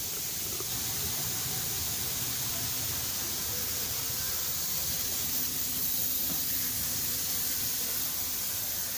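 Steady, even hiss, with a faint low rumble beneath it and a faint steady hum in the second half.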